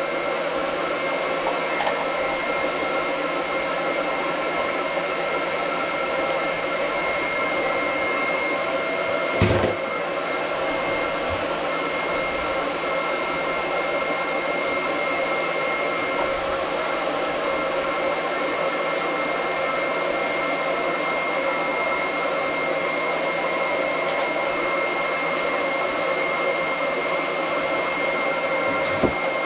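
An electric motor running steadily with a high-pitched whine, and one sharp knock about nine and a half seconds in.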